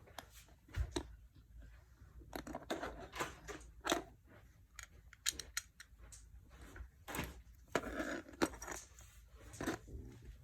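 Small plastic Lego pieces being handled, clicking and clattering irregularly with rustling between.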